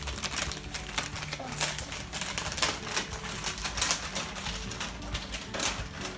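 Wrapping paper being picked at and torn off a gift box by hand: a run of quick, irregular crinkles and crackling clicks.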